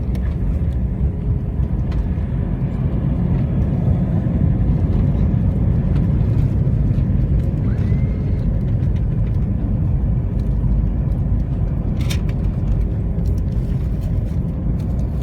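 Steady low rumble inside the cabin of an Airbus A321 as it lands. A faint short rising tone comes about eight seconds in and a brief click about twelve seconds in.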